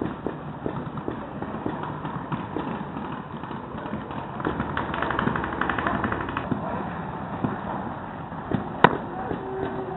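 Paintball markers firing: a fast run of shots lasting about two seconds midway, then a single sharp crack near the end.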